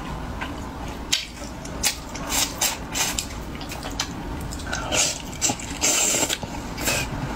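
Wet eating sounds of a person sucking and chewing sauce-soaked braised fish off the bones: repeated lip smacks and clicks, with a longer sucking slurp about six seconds in.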